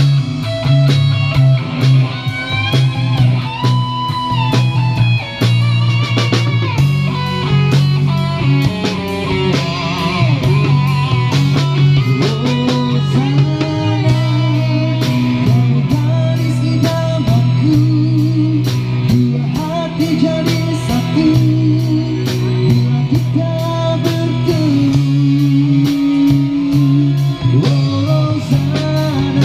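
Instrumental rock played by a band: a bending electric guitar melody over bass guitar and drum kit, running steadily.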